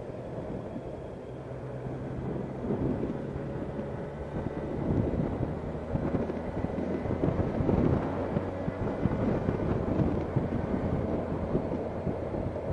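Motorcycle engine running along at low road speed. It is overlaid by a low rumble of wind buffeting on the microphone, which grows louder as the bike speeds up.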